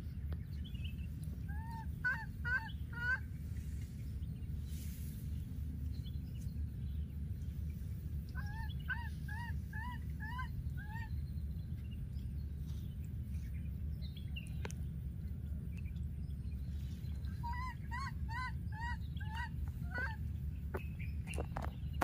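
Baby monkey calling for its missing playmate: three bouts of short, high calls in quick succession, each call rising and falling in pitch, five to eight calls per bout, about a second and a half in, about eight seconds in, and again past the middle.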